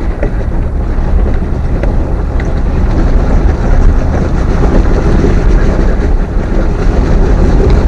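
Steady, loud low rumble of a vehicle driving slowly on gravel while towing a heavy trailer of water tanks, with wind buffeting the microphone.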